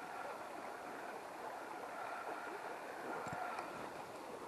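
Steady, faint rush of river water running over a shallow riffle, with a couple of small clicks a little past three seconds in.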